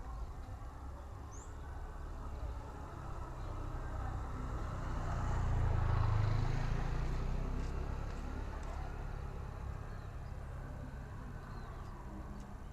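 Low rumble of a passing vehicle, swelling to a peak about six seconds in and then fading.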